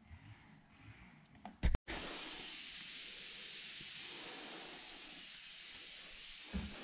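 A short knock, then from about two seconds in a steady high hiss of air being sprayed, which runs on evenly.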